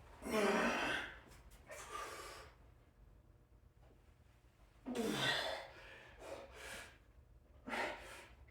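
A man breathing hard from the effort of pull-ups: heavy, partly voiced exhales and gasps at irregular intervals, the loudest at the start and about five seconds in, each followed by a smaller breath.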